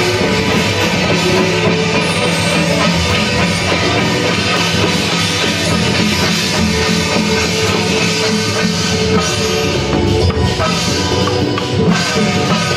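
Loud festival percussion: hand-held drums and clashing cymbals played in a steady beat, over a continuous melodic accompaniment with held notes.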